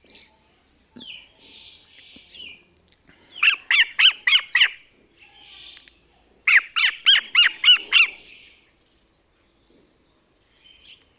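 Cockatiel calling in two quick runs of six or seven loud, squawky rising-and-falling calls, with a few faint chirps before them.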